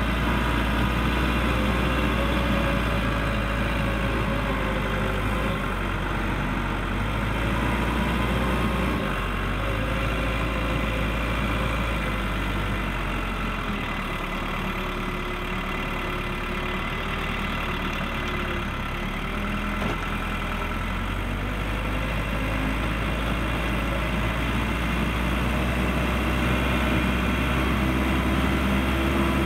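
Case 580L backhoe's turbo diesel engine running steadily as it pushes snow, its engine note shifting up and down several times as the load changes.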